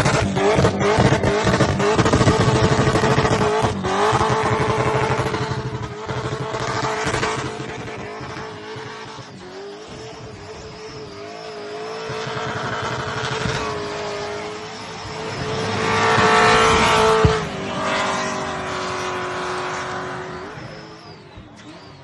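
Supercharged burnout car's engine held at high revs, a steady high note over spinning tyres. Loudest in the first few seconds, it eases off around the middle and swells again a little past halfway before tapering near the end.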